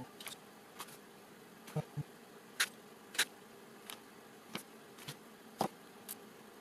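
Small steel nails being snipped to length with end-cutting nippers: a string of short, sharp metallic snaps and clicks, about a dozen at uneven intervals, some louder than others, over a faint steady hum.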